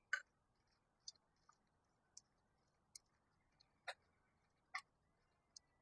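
Near silence with faint, sharp metallic clicks about once a second, from hand tools working on the shifter bolts on the side of a Saginaw four-speed transmission.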